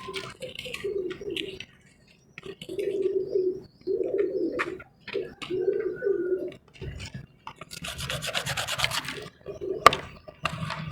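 Dry, hard crumbly shapes being rubbed and crushed by hand: a series of gritty rubbing strokes, then a fast run of crackling crunches and one sharp snap near the end.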